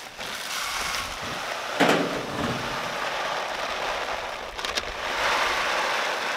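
Dry chicken feed pouring from a sack into a plastic poultry feeder, a steady rain-like hiss, with one thump about two seconds in.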